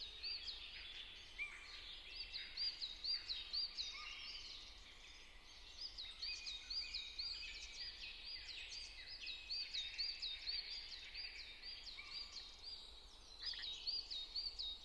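Faint birdsong: small birds chirping in quick runs of short, high, repeated notes, with brief lulls between runs.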